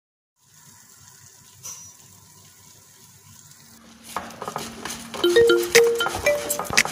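A faint hiss with a single click about two seconds in. Then, from about four seconds, upbeat background music with plucked, marimba-like notes and crisp percussion starts and is the loudest sound.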